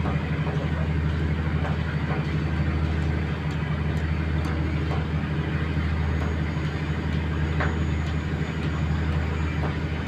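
Fishing boat's engine running at a steady low drone as the boat moves slowly along.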